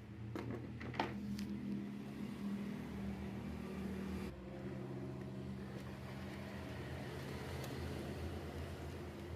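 Steady low mechanical hum, with a few sharp clicks in the first second and a half.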